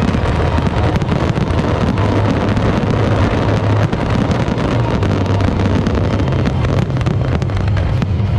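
A dense fireworks barrage: aerial shells bursting so close together that the booms merge into one continuous rumble, with sharp cracks throughout.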